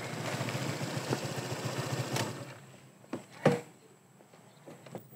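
Honda PCX motor scooter's single-cylinder engine running as the scooter rolls up and stops, then switched off a little over two seconds in. Two sharp knocks follow about a second later.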